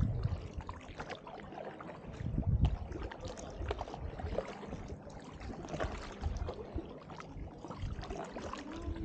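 Double-bladed kayak paddle stroking through the water beside an inflatable canoe-kayak: irregular splashes and drips from the blades, with a heavier low rumble at the start and again about two and a half seconds in.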